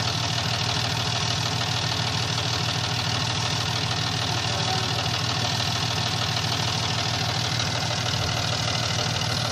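John Deere compact tractor's diesel engine idling steadily, with an even low rhythmic pulse.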